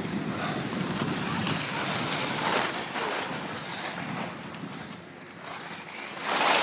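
Wind rushing over an iPhone microphone under a ski helmet during a downhill ski run, with the hiss of skis on snow swelling and fading, loudest in a surge near the end.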